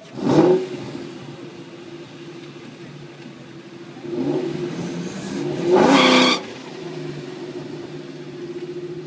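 Vehicle engine idling steadily, revved in three short bursts: a sharp one right at the start, a smaller one about four seconds in, and the loudest about six seconds in, rising in pitch before dropping back to idle.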